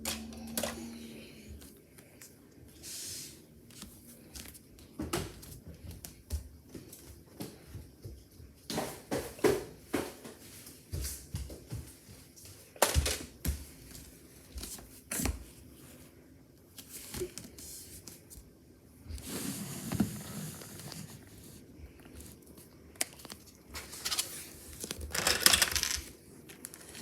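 Lego bricks being handled: irregular plastic clicks, knocks and clatter, with a brief rustling stretch about two-thirds of the way in and a denser run of clicks near the end.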